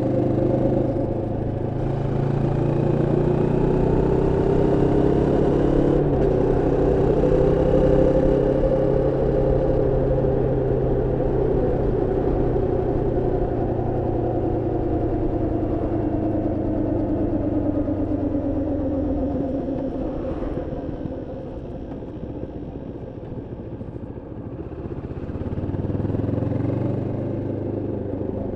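Moto Morini X-Cape 650 parallel-twin engine running while ridden, held at moderate revs during running-in. Its pitch rises and falls with the throttle, drops and quietens about twenty seconds in as the rider eases off, then picks up again near the end.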